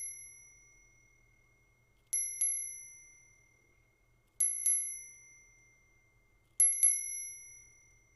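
A miniature gold bell keychain rung by hand, giving a clear high chime. It is struck twice in quick succession, three times over about two seconds apart, and each ring fades away over about a second.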